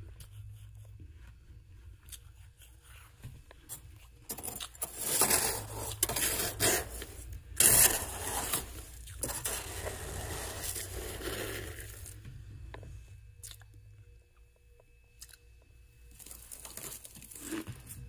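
A tool digging and scraping into thick, powdery freezer frost made with a humidifier, crunching and crackling in bursts with sharp clicks. It is loudest between about four and twelve seconds in. A low hum underneath stops about fourteen seconds in.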